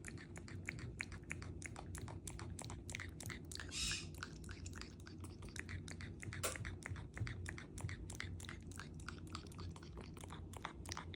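African grey parrot nibbling with its beak: a rapid, uneven run of small clicks and crunches, with a brief hiss about four seconds in and one sharper click a couple of seconds later.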